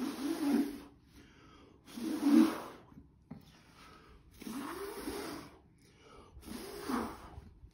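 A person blowing hard by mouth onto wet acrylic paint, pushing it across the surface in a Dutch pour: four long, forceful breaths about two seconds apart.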